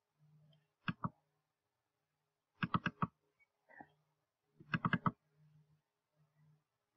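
Computer mouse button clicks as folders are double-clicked open: a quick pair of clicks about a second in, then two rapid double clicks of several clicks each, near the three-second mark and about five seconds in.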